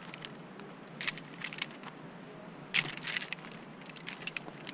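Metal climbing gear (carabiners and quickdraws) clinking and jangling as the rope is handled, in short clusters about a second in and about three seconds in, with a few lighter clicks near the end. The climber is sorting out a rope that seems to have been clipped the wrong way through a quickdraw.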